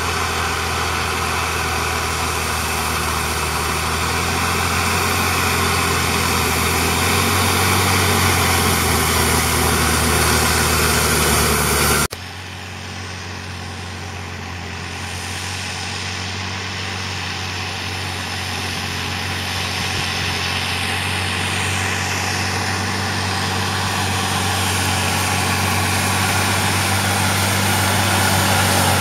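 Valtra T151's 6.6-litre six-cylinder diesel tractor engine running steadily. A heavy noise over the engine stops abruptly about twelve seconds in; the engine then sounds quieter and grows gradually louder toward the end.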